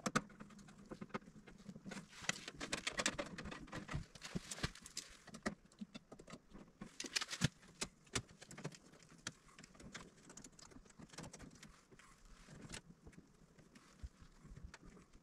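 Small clicks, taps and rustling from hands and a tool working wires inside an open electrical breaker panel, landing stripped conductors on the breakers and bars. The rustling and scraping gets busier a couple of seconds in, and again about seven seconds in.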